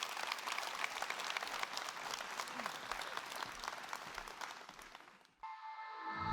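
Audience applauding, a dense clatter of many hands that thins slightly and then cuts off abruptly about five seconds in. Sustained ringing music tones start right after the cut.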